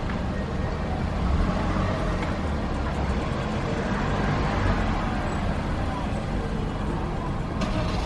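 Road traffic: cars creeping over the crossing close by, engines and tyres, with a steady low rumble and a short hiss near the end.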